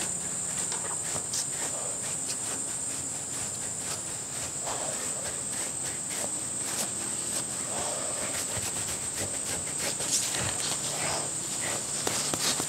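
Kong rubber dog brush stroking through a short-haired dog's coat, a run of soft, scratchy brushing strokes. A steady high-pitched whine sits underneath; it fades partway through and comes back near the end.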